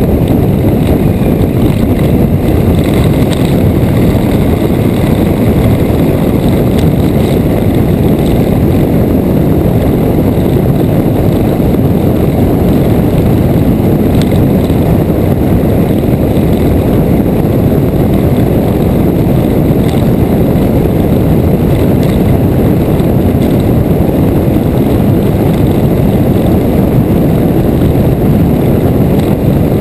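Motorcycle riding at road speed: a steady, loud rush of wind buffeting the bike-mounted camera's microphone, blended with the engine's drone and tyre noise.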